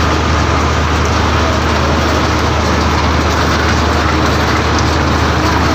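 Citrus washing-and-polishing line running: a steady low machine hum with a continuous rattle of the roller conveyor and the oranges rolling over it.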